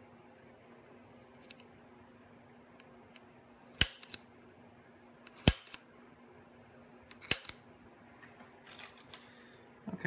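Spring-loaded center punch snapping three times into an aluminum block, about a second and a half apart, each sharp snap followed by a lighter click as the punch resets.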